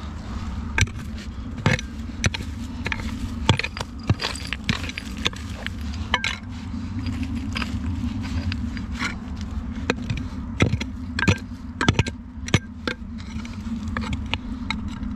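Short-handled hoe chopping and scraping into stony soil, its blade knocking and clinking against rocks and pebbles in irregular strikes, about one or two a second.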